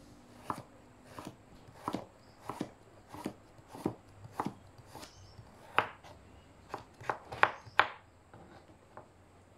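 Kitchen knife slicing a carrot into rounds on a plastic cutting board: a sharp knock each time the blade goes through and hits the board, in an uneven rhythm of one or two a second. The knocks are loudest shortly before the end, then fainter.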